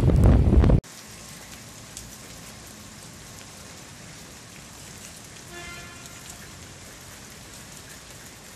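Wind buffeting the microphone, cut off suddenly less than a second in. After that comes steady rain pattering on wet pavement, much quieter, with a faint short pitched sound about halfway through.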